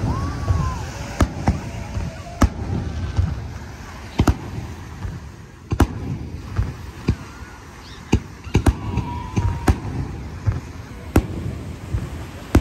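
Aerial fireworks shells bursting overhead: about a dozen sharp bangs at uneven intervals, some in quick succession, over a low rumble.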